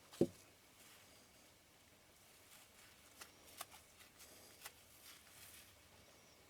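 Small hand-handling noises on a workbench: a soft knock about a quarter second in, then a few faint clicks and light rustling, as lens parts and tools are handled.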